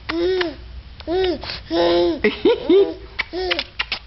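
A baby babbling and cooing in about five short calls that rise and fall in pitch, with sharp lip-smacking kiss clicks between them.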